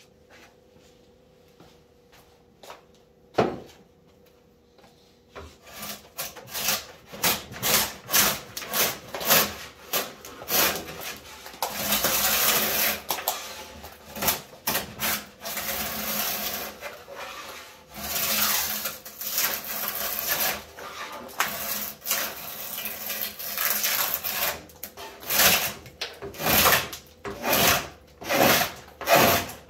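A sharp drawknife shaving a long wooden boat board: quick repeated cutting strokes, about two a second, each a short rasping slice through the wood, with a few longer pulls. They begin about five seconds in, after a single knock.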